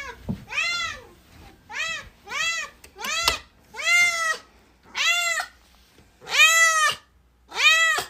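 A long-haired domestic cat meowing over and over, about nine meows in a row, each rising and then falling in pitch, with the longest near the end. These are insistent calls to play, which the captions give as the cat asking for its ball to be thrown.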